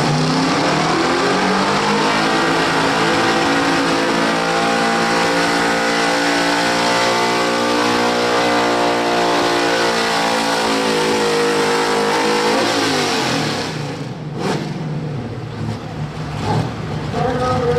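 Square-body Chevrolet pickup's engine at full throttle pulling a weight-transfer sled: the revs climb over the first few seconds and hold high. About 13 seconds in the engine is let off and winds down as the pull ends, leaving much quieter track noise.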